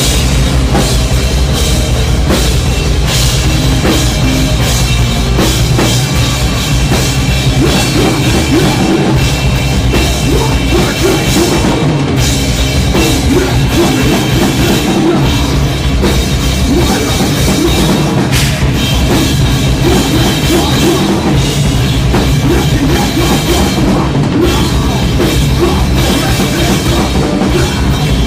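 Loud rock music, heavy-edged, with a drum kit hitting steadily throughout, as played live by a band.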